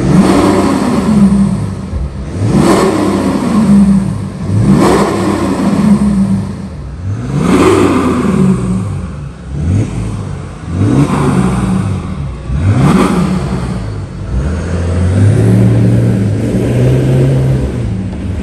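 BMW X3 3.0's straight-six diesel revved through a split dual exhaust with M-style tips, about six times in quick blips that rise and fall. From about 15 seconds in, a steadier, lower engine note follows as the car pulls away.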